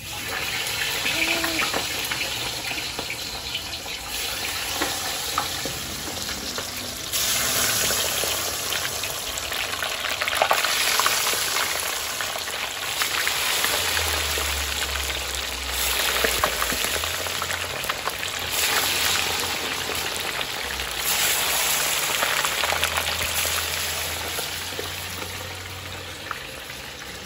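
Chicken wings deep-frying in a large stainless-steel stockpot of hot oil: a steady crackling sizzle that swells louder at times as more wings go in.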